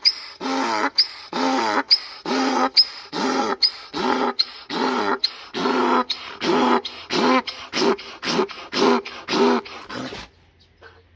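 Donkey braying: a long run of rapid hee-haw calls, the rasping in-breath and out-breath notes alternating about two to three times a second, stopping near the end.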